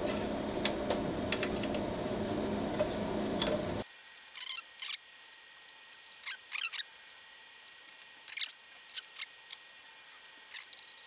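Scattered small clicks and short scrapes of a hand tool turning the screws of a Prusa i3 MK3 3D printer's heatbed, tightening them down onto nylock nuts. A steady background hum drops away suddenly about four seconds in.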